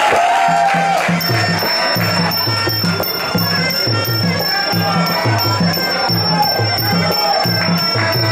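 Traditional Muay Thai fight music (sarama): hand drums beat a steady repeating rhythm under a wavering reed-pipe melody, with small cymbals ringing in from about a second in.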